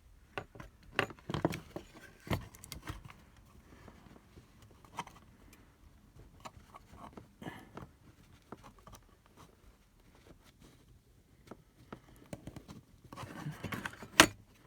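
Hand-handling of small plastic parts: scattered light clicks, taps and scrapes as a trimmed plastic strain-relief fitting is pushed into the charger case, busier near the end with one sharp click.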